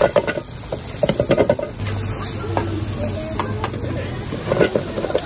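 Food-stall cooking noise: sharp clinks and knocks of utensils over a steady hiss, in a few short clusters near the start, about a second in and near the end.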